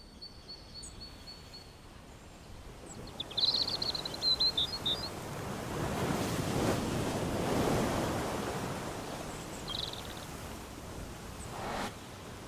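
Sea waves washing, a soft surf noise that swells up through the middle and eases off again, with short bird chirps about three to five seconds in and once more near ten seconds.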